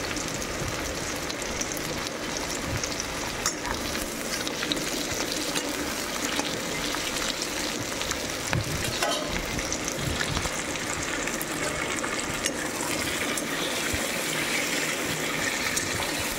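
Sliced onions and green chillies sizzling steadily in hot oil in a metal kadhai, with a few scrapes and taps of a metal spatula against the pan as they are stirred.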